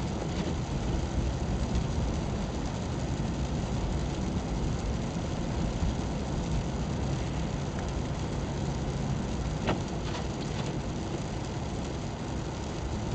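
Car driving on a snowy, slushy road, heard from inside the cabin: a steady rumble of engine and tyre noise. A few light clicks sound about ten seconds in.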